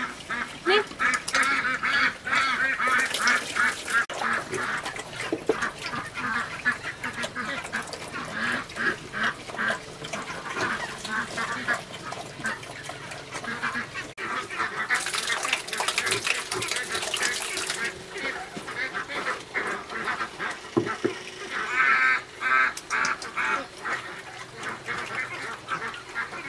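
A group of pigs eating from a trough: rapid, dense chomping and smacking with grunts. A few seconds of louder hissing noise come in just past the middle.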